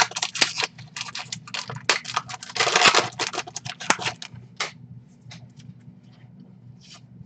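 Baseball trading cards being flipped and slid off a stack by hand: quick papery flicks and scrapes, dense for the first few seconds, then thinning to a few scattered ticks.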